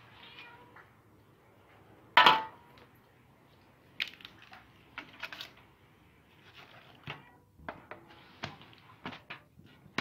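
Knife cutting raw chicken on a metal tray: scattered clinks and knocks of the blade against the metal. The loudest comes about two seconds in, with a short ring.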